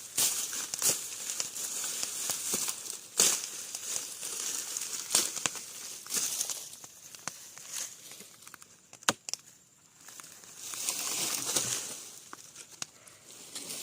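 Undergrowth being slashed with a blade: sharp cutting strikes about every one to two seconds amid the rustle and crackle of dry brush and grass.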